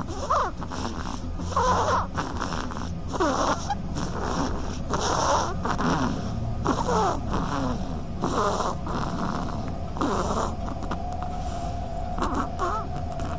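Sleeping duckling snoring: wheezy, breathy snores come roughly once a second, each with a short squeaky tone that falls in pitch.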